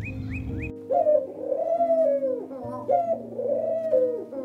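Feral rock pigeons cooing: two drawn-out coos that swell up and fall away, about two seconds apart. They follow a brief run of high falling chirps that cuts off under a second in.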